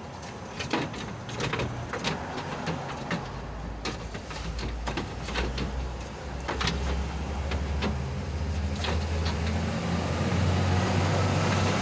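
Scattered clicks and knocks of metal parts being handled, over a vehicle engine's low hum that sets in about three seconds in and grows louder toward the end.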